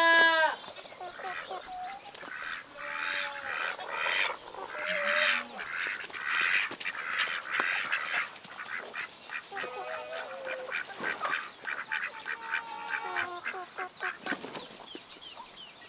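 Ducks quacking: a run of harsh, raspy calls, densest in the first half, then thinning to scattered calls. A loud drawn-out call comes right at the start.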